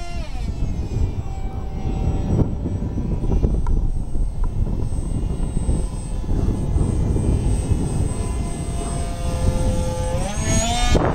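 Electric motor and propeller of a foam RC parkjet in flight, a whine that drops in pitch as the throttle is cut back at the start, holds steady, then rises again near the end as the throttle is opened up. Low wind noise on the microphone underneath.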